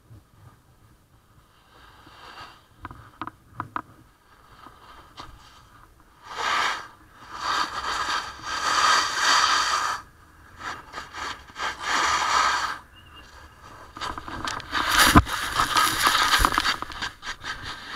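Snowboard edge scraping and hissing across hard-packed snow in several long carving runs. About 15 seconds in there is a sharp thump as the rider goes down, with snow spraying.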